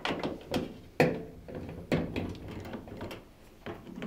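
Screwdriver undoing the screws that hold a washing machine's top panel: a run of irregular sharp clicks and scrapes as the screws are turned out.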